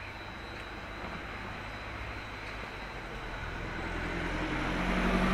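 A motor vehicle driving past on the street, its engine and tyre noise growing steadily louder and peaking near the end as it comes close.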